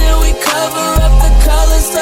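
Music: a hip hop and pop song with heavy bass and a melodic vocal line, the bass dropping out briefly twice.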